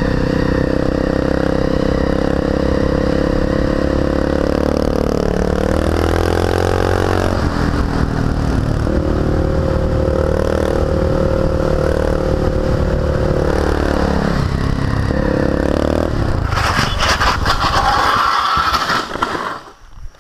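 Honda XR650L dual-sport motorcycle engine running at speed through bends, its pitch rising and falling twice with the throttle. About three-quarters through, a loud harsh scraping and skidding drowns the engine as the bike goes down and slides along the asphalt, and it cuts off near the end.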